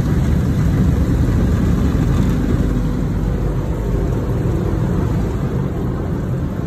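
Steady rushing noise of automatic car wash machinery and water, heard from inside the car.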